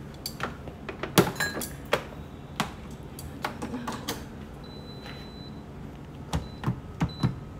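Cookware being handled in a kitchen as rice is set to cook: a scattered series of short, sharp clicks and knocks, the loudest about a second in.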